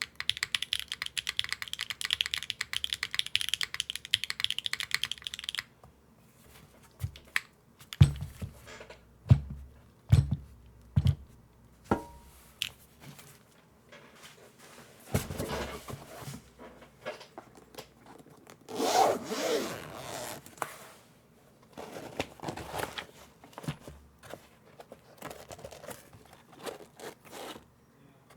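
Fast typing on a mechanical keyboard with Akko Cilantro switches, GMK keycaps and no foam for about the first six seconds, then scattered single key presses and a few low thumps, followed by stretches of rubbing and scraping.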